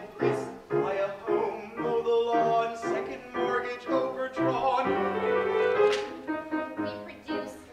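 A musical-theatre number sung live on stage, with a voice singing over piano accompaniment.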